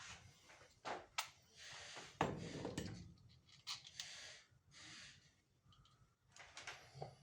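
Irregular handling noises: sharp clicks and knocks with short scraping sounds, the loudest a little after two seconds in. There is no steady motor running.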